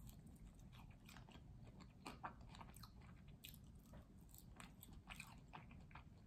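Faint chewing of a cheese-topped potato wedge close to the microphone: soft, irregular mouth clicks and smacks as the food is bitten and chewed.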